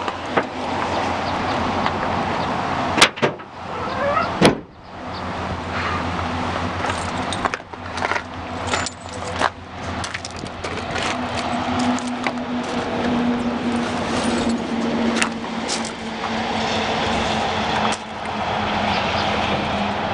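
A bicycle being ridden, heard through a camera duct-taped to its frame: a steady rush of wind and tyre noise with many rattles and clicks from the bike, two sharp knocks about 3 and 4.5 seconds in.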